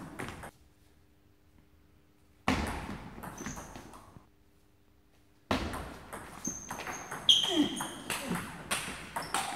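Table tennis doubles rally: the celluloid ball clicks off the paddles and the table in quick bursts, with players' short shouts, broken twice by pauses of near silence.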